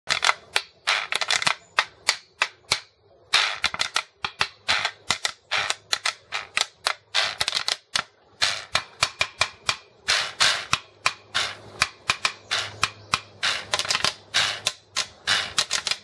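Quijada, a dried animal jawbone percussion instrument, scraped along its teeth with a wooden stick: rapid runs of sharp dry clicks in a rhythmic pattern, with brief pauses about three and eight seconds in.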